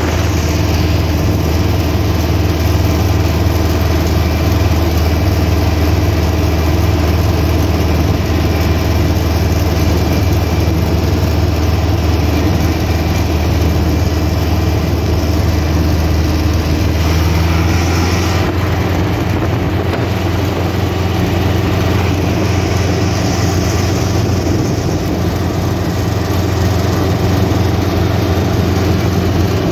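Farm tractor's diesel engine running steadily at road speed, a loud continuous low drone heard from the driver's seat. The drone shifts slightly about eighteen seconds in.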